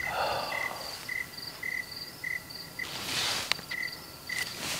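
Crickets and other insects chirping in an evening chorus: one short chirp repeats about twice a second, with a higher pulsed trill over it. About three seconds in there is a brief burst of noise and a sharp click.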